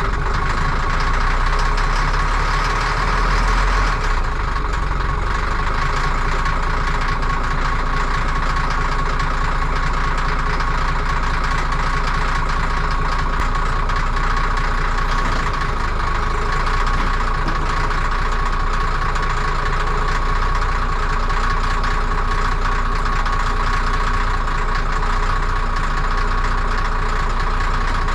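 Caterpillar 14G motor grader's diesel engine running steadily under way, with a steady high whine over the engine rumble.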